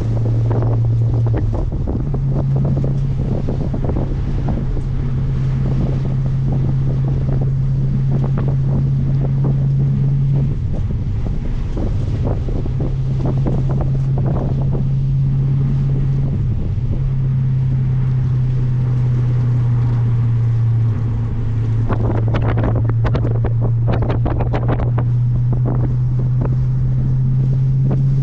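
Heavy wind noise rushing and buffeting over the microphone of a 2007 Audi B7 RS4 at speed on track. A steady low drone runs under it, dropping out briefly a couple of times.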